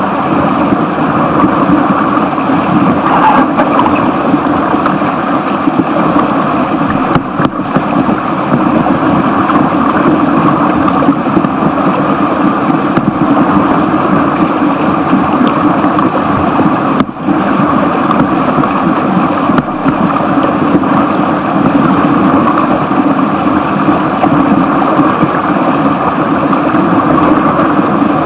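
Whitewater of a small stream rapid rushing and splashing right at the microphone, a loud, steady wash of water that dips for an instant twice.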